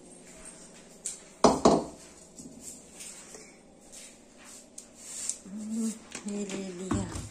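Metal kitchen utensils clattering and clinking, with two loud knocks close together about a second and a half in.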